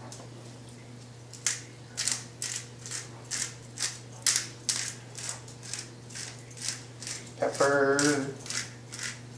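Hand-twisted salt grinder cracking salt, a run of short ratcheting clicks at about two to three a second.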